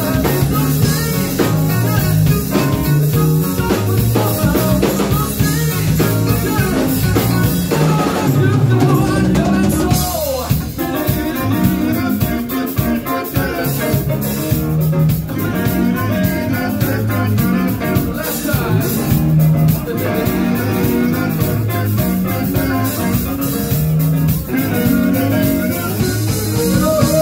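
Live rock band playing a song, with drum kit, electric guitar, a Nord keyboard and a male lead voice singing over a steady beat.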